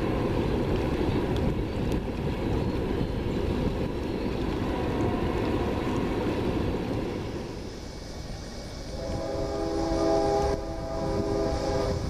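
Freight train rolling by with a steady rumble, then a locomotive's chord horn sounding from about nine seconds in, held for a few seconds with a short break just after ten seconds.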